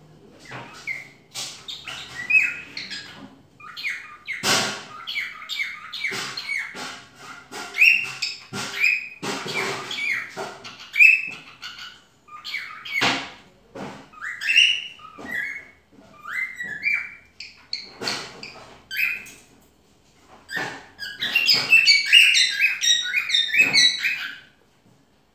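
Cockatiel chirping and whistling in a string of short calls, ending in a quick run of chirps near the end.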